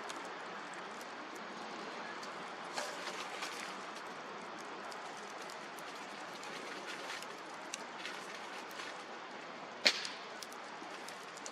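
Wood fire burning with a steady hiss and scattered crackles and pops, one much louder snap about ten seconds in.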